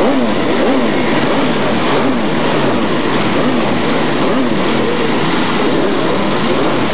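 Several superbike racing motorcycle engines revving, their pitch rising and falling over and over in quick overlapping blips, as the bikes are push-started and pull away from the grid.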